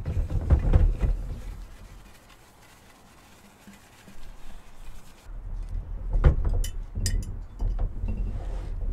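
A large glass jar being wiped out and handled: paper towel rubbing inside the glass at first, then a sharp knock about six seconds in as the jar is set down on a wooden table, followed by a few lighter clicks over a low rumble.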